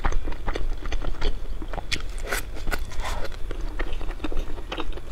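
Close-miked eating: chewing and wet mouth clicks and smacks from chewing a saucy, chewy bite. They come irregularly, several a second, over a steady low hum.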